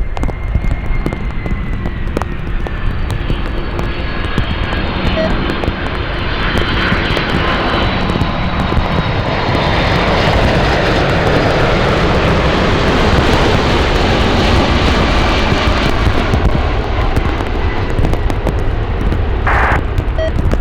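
Jet airliner engines passing, with a deep rumble that grows louder to a peak about halfway through and a high whine that slowly falls in pitch.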